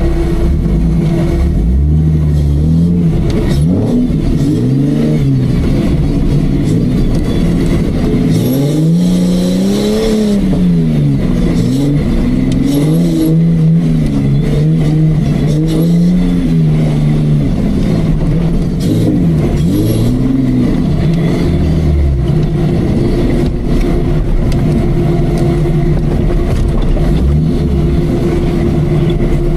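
Off-road Jeep's engine revving up and down again and again under load, with a steady whine underneath.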